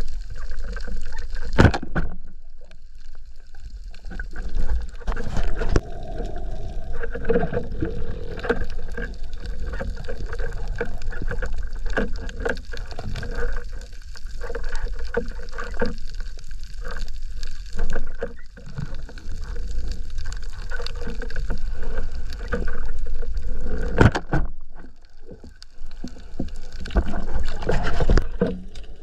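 Underwater sound picked up by a diver's camera: a steady low rush of water with many scattered clicks and knocks.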